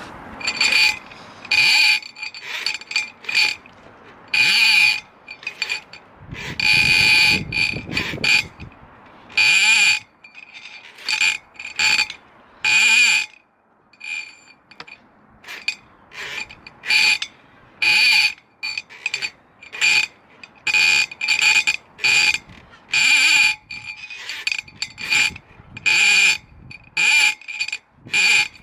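A sewer inspection camera's cable being wound back onto its reel, the reel's ratchet clicking in a fast, buzzing rattle. It comes in short irregular spurts, roughly one a second, with brief pauses between turns.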